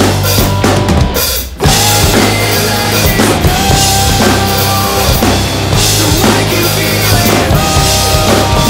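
Drum kit played along to a full-band song: bass drum, snare and cymbal hits over the recorded band track. About a second and a half in, everything drops out for a moment, then the drums and band come back in together.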